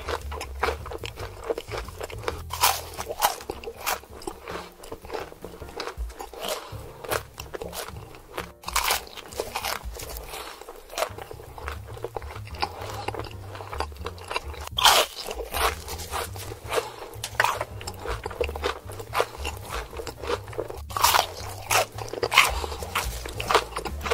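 Eating sound effects of crispy fried chicken and fries being bitten and chewed: a dense run of crunches, with a louder bite every few seconds, over quiet background music.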